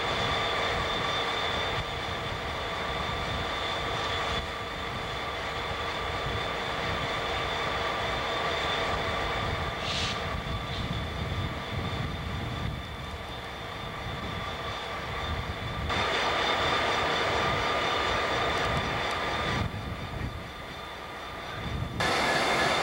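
Diesel-electric locomotives idling: a steady engine rumble with steady whining tones above it. The level shifts abruptly several times, and a brief high squeal comes about ten seconds in.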